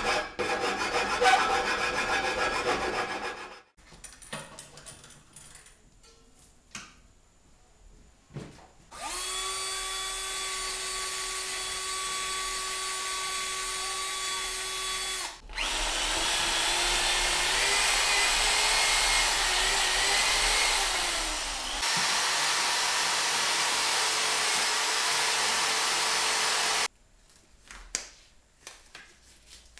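A loud noisy stretch of about three seconds, then, after a pause, an angle grinder spinning up and running free with a steady whine. From about a third of the way in it grows louder and harsher for some six seconds as it works the steel tow pole, its pitch sagging a little under the load, then runs free again and switches off near the end.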